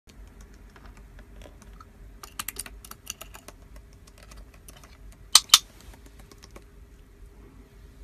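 Light clicking and tapping of a plastic toy-brick house's door as a small parrot pushes it open and it swings shut, with two sharp clacks about halfway through.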